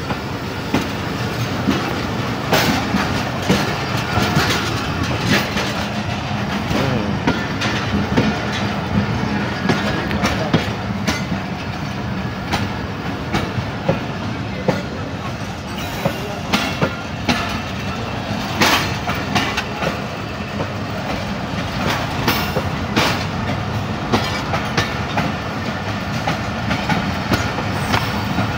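Passenger coaches of the Pakistan Express running through a station at speed without stopping: a steady rolling rumble with irregular sharp clacks of the wheels over the rail joints.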